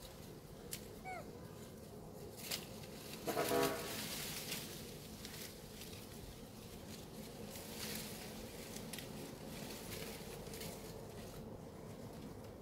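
A macaque gives one short cry with a clear pitch, lasting about half a second, about three and a half seconds in. Faint chirps come before it, and rustling and scattered clicks follow.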